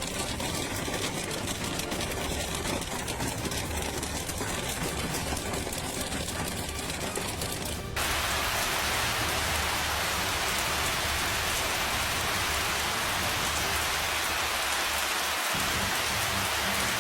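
Hail and rain pelting down on hard surfaces in a steady hiss. About halfway through it cuts to a louder, denser downpour.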